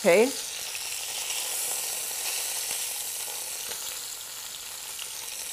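Chicken pieces sizzling in the nonstick pot of a Cuisinart MSC-600 multi-cooker on its brown/sauté setting: a steady hiss.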